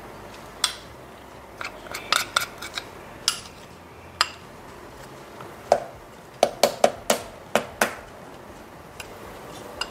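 Spoon clinking and tapping against a glass bowl as almond butter is scraped out into a food processor jar: a string of sharp, irregular taps in two bunches, the later bunch louder.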